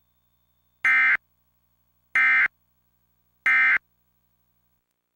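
Emergency Alert System end-of-message (EOM) signal: three identical short bursts of SAME digital data tones, each about a third of a second long and spaced just over a second apart, marking the end of the monthly test alert.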